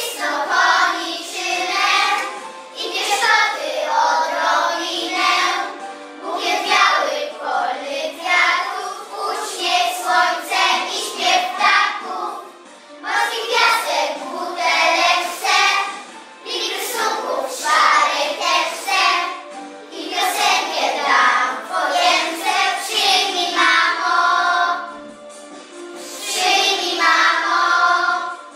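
Young children singing a song together, in phrases with short breaths between them.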